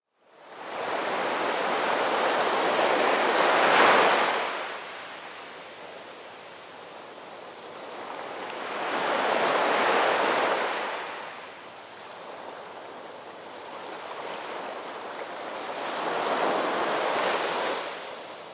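Ocean waves washing in and drawing back, swelling three times about six seconds apart, the first surge the loudest.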